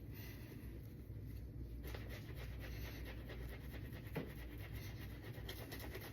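Shaving brush with a hybrid badger and synthetic knot churning wet soap lather in quick, rhythmic strokes: a soft, scratchy swishing that gets busier about two seconds in, with one sharper tap near the middle.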